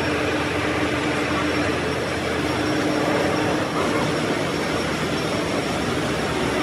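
Steady hum and noise of machine tools running in a machine shop, with a steady low tone that fades out about halfway through.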